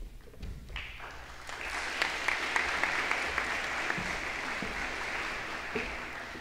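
Applause from a small audience, building about a second in and easing off near the end.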